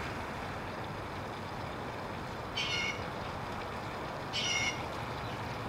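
Two short, high-pitched animal calls about a second and a half apart, over a steady background hiss.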